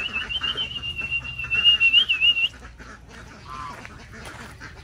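Flock of domestic ducks and geese calling, quacking and honking in quick, overlapping calls, with a high thin wavering whistle over the first two and a half seconds. After that it quietens, with a single call about three and a half seconds in.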